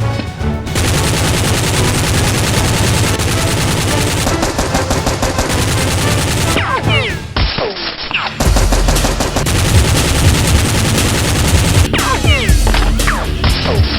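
Rapid automatic gunfire sound effects, shots following one another in quick succession. There is a short break a little past the middle, and a few brief whizzing glides around it and near the end.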